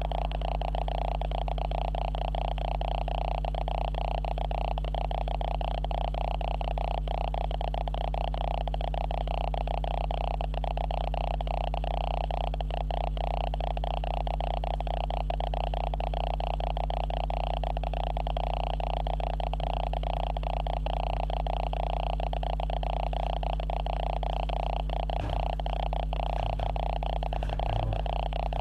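Steady electronic hum and whine from a faulty camera recording its own noise, an unchanging drone with a low hum and a higher buzz. A few faint low knocks come near the end.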